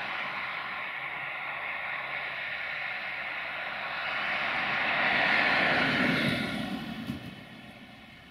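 Quadcopter drone's rotors whining steadily, swelling about five seconds in and then fading away near the end.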